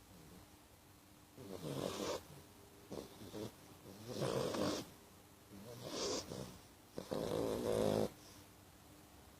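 A sleeping pet snoring loudly: five snores starting about a second and a half in, roughly one every second or two, the last the longest and loudest, then the snoring stops.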